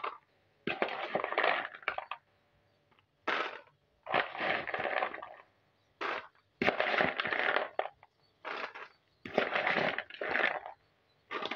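Hard, crunchy fried chin chin pieces scooped with a metal slotted spoon from a plastic bowl and tipped into plastic tubs: about eight separate scoops, each a short burst of clattering pieces.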